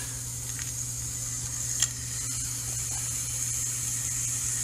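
Bacon sizzling in a frying pan heated by the sun on pavement: a steady hiss over a low hum, with one short click about two seconds in.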